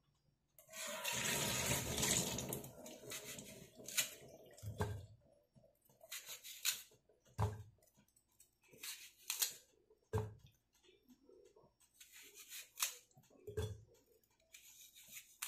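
A small knife cutting a peeled apple held in the hand, and apple pieces dropping into a glass jar with about ten separate dull knocks. About a second in, a rushing noise, like running water, lasts about three seconds and is the loudest sound.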